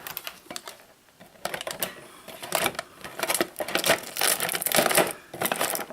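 Small plastic toy pieces clicking and rattling against each other as they are handled, in quick irregular runs that start about a second and a half in.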